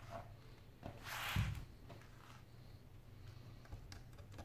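Handling noise from a tablet's metal frame on a wooden desk: a short scrape with a low thump about a second in, then a few light clicks as a thin metal pry tool works along the frame's edge near the end, over a steady low hum.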